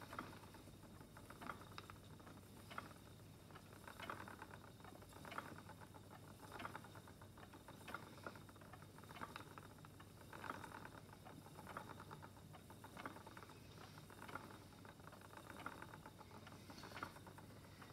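Wooden spinning wheel running while llama fibre is spun, with a faint, even rhythm of soft clicks and rustles about once every 1.3 seconds.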